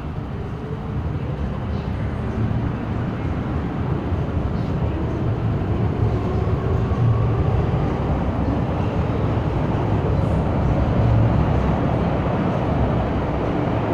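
MTR Island Line M-Train electric multiple unit pulling out of an underground station platform. Its rumble of wheels and motors grows louder over the first several seconds as it gathers speed, then holds steady.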